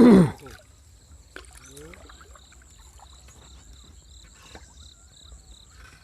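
A short loud call from a man's voice at the start. Then quiet water sloshing and dribbling as a gill net is handled in the water, with insects trilling steadily.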